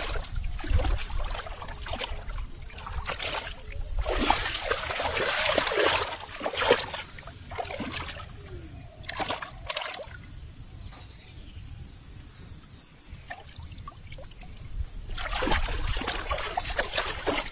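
Hands splashing and churning shallow muddy water while groping for fish. There are louder bursts of splashing about four to seven seconds in and again near the end, as a fish is lifted out with water streaming off it.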